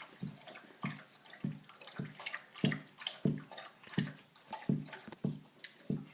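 Wet, rhythmic mouth smacking while eating, a short smack about every 0.6 s.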